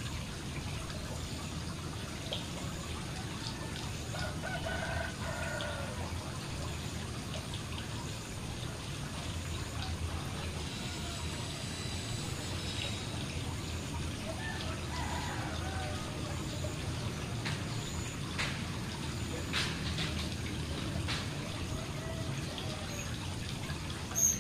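Small fountain spout splashing steadily into a garden koi pond, a continuous trickling wash of water. Faint calls sound in the background twice.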